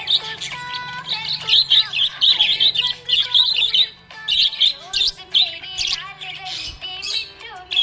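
Budgerigar chirping and warbling: a rapid run of short, high chirps, busiest in the first half.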